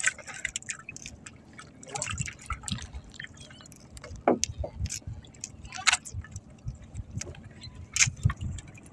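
Water dripping and splashing at the side of a small outrigger boat as a fishing handline is hauled in hand over hand, with scattered light knocks and clicks on the hull.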